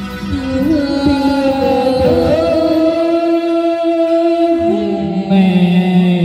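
A woman and a man singing a duet into microphones over instrumental backing music, holding long notes through the middle.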